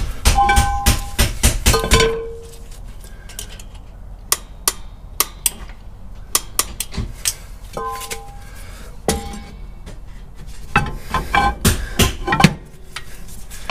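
Metal brake drum being slid on and off over the rear drum brake shoes to check their adjustment: clanks and scraping knocks, several ringing briefly, as the freshly adjusted shoes just start to drag. The clatter is busiest near the start and again about eleven seconds in.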